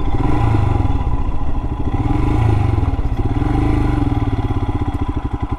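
Royal Enfield Himalayan's single-cylinder engine running at low speed as the motorcycle rolls onto gravel, tyres crunching over loose stones. Its firing pulses slow and become distinct near the end as it drops toward idle.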